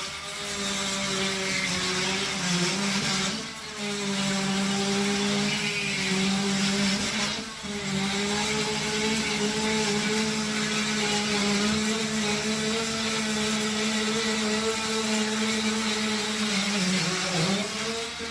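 Handheld electric power tool cutting into a wall, its motor running with a steady pitched hum that eases off briefly about three and a half and seven and a half seconds in, and again near the end.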